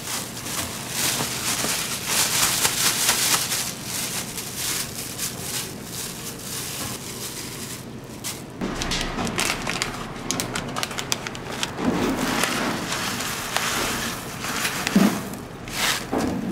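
Rustling and crackling of chopped onion and radish pieces in a mesh stock bag as gloved hands pack them down and gather the bag closed. Duller low bumps join in during the second half.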